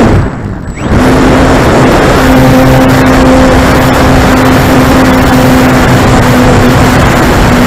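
Electric motor and propeller of an E-flite Corsair RC plane, picked up by a camera on the plane itself: the motor throttles up about a second in and holds a steady hum under a loud rush of wind and prop wash on the microphone.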